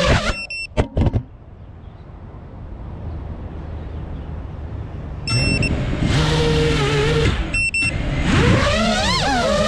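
FPV quadcopter's electric motors stop with a few short high beeps about a third of a second in, leaving a low hiss. About five seconds in they start again, running steadily with more short beeps, then rev up in rising and falling whines near the end.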